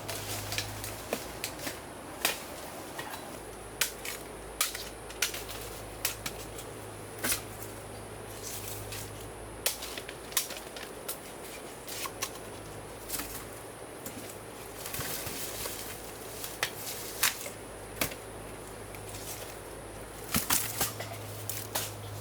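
Bamboo shoots being harvested by hand: a string of sharp, irregular snaps and cracks, one or two a second, with a brief rustle of plant material about two-thirds of the way through.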